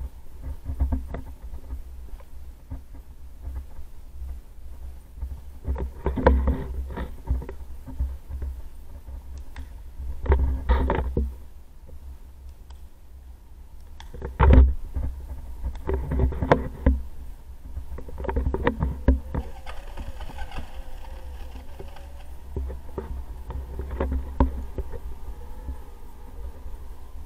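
Inline skates rolling over concrete: a steady low rumble with irregular clattering bursts every few seconds.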